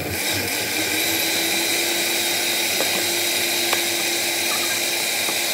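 Countertop blender running steadily at speed, pureeing boiled red chilies with their cooking water into a smooth sauce.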